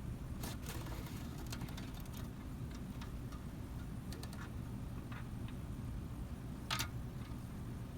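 Scattered small clicks and taps of hardware and a tool being handled while a pulley is fastened to a printer column, with one sharper click near the end, over a low steady hum.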